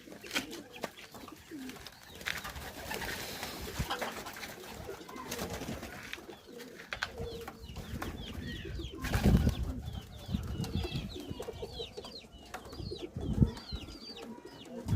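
Homing pigeons cooing in their loft, with scattered clicks and rustles. Short high chirps come in during the second half, and there are two loud low thumps, about nine and thirteen seconds in.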